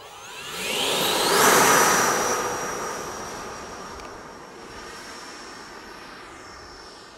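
Electric ducted fan of a radio-controlled MiG-17 model jet spooling up for takeoff, a rising whine over a rushing whoosh. It is loudest about a second and a half in, then fades steadily as the jet rolls away and climbs out, its high fan whine dropping slightly in pitch.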